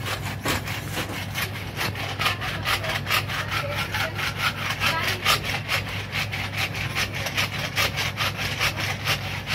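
A small plastic hand-held massage tool rubbed briskly back and forth against skin, making a rasping scrape of about four strokes a second.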